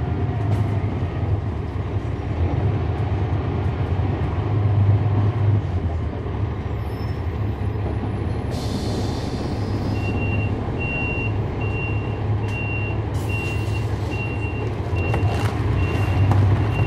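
The Cummins ISL9 diesel of a NABI 416.15 transit bus running with a steady low hum, heard from on board. A little past halfway there is a short hiss of air. Then an electronic warning beeper starts, sounding about twice a second, with another air hiss partway through.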